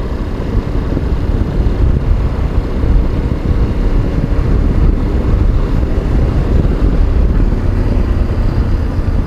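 Riding a motorcycle: steady wind rumble on the microphone over the motorcycle's running and road noise.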